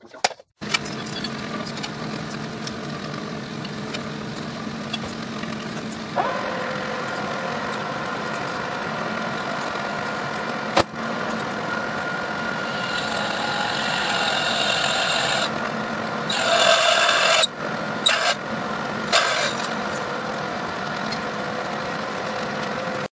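Metal lathe running while a twist drill in the tailstock bores the centre hole of a large metal disc held in the chuck: a steady machine hum that gets fuller at about six seconds. From about thirteen seconds a high-pitched cutting squeal joins it, loudest around sixteen to seventeen seconds, with a few brief breaks just after.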